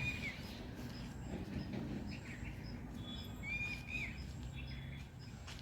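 Birds chirping and calling, with two short, level whistled notes, one near the start and one about three and a half seconds in, over a low rumble of wind on the microphone.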